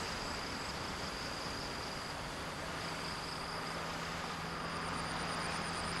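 Outdoor ambience of insects singing high and steady over a soft hiss, with a rapid pulsing high trill joining about four and a half seconds in. A low steady hum comes in about three seconds in.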